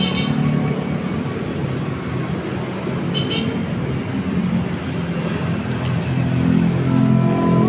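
Steady street traffic noise: engines and tyres of passing cars and motorbikes.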